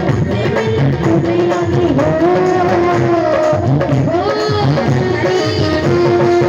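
Live devotional bhajan music: a steady held melody, typical of a harmonium, over a hand-drum rhythm such as tabla, with gliding melodic phrases at times.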